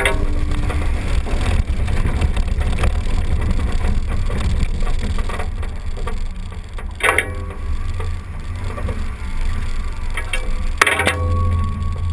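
A Jeep driving slowly along a dirt trail, heard from a hood-mounted camera: a continuous low rumble of engine, tyres and wind on the outside microphone. Short knocks and rattles come through over bumps, with sharper clusters about seven seconds in and again near the end.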